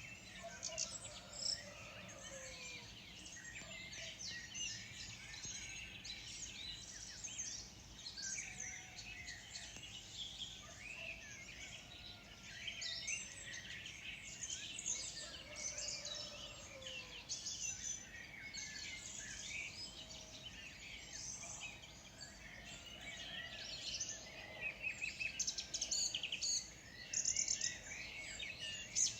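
Morning chorus of many small birds chirping and trilling at once, the calls overlapping densely. A few lower whistled calls glide downward now and then, and the chirping grows louder near the end.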